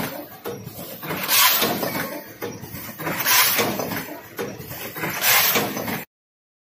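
Rotary premade-pouch filling and sealing machine running, with a burst of hiss about every two seconds in time with its cycle. The sound cuts off about six seconds in.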